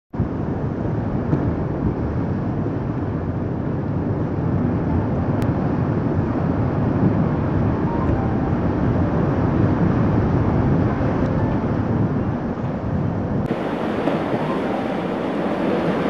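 Steady rushing noise of sea surf washing against a concrete tetrapod breakwater. The hiss turns brighter about thirteen seconds in.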